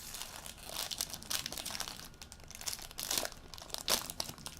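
Plastic wrapper of a trading-card pack crinkling as it is opened and handled, with irregular crackles and a few sharper crackles around three and four seconds in.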